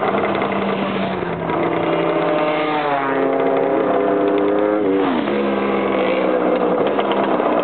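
Motorcycle engines riding past close by. One revs up, its pitch climbing from about three seconds in, then the pitch drops sharply near five seconds.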